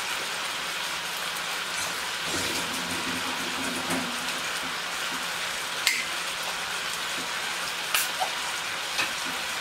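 Chicken pieces sizzling steadily in a wok, with a few sharp crackles about six, eight and nine seconds in.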